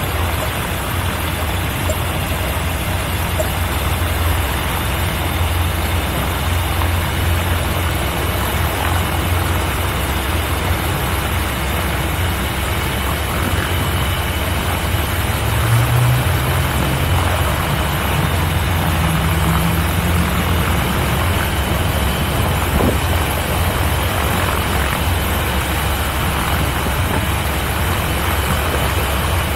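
C42 microlight's piston engine and propeller idling steadily on the ground. The engine note rises a little for a few seconds around the middle.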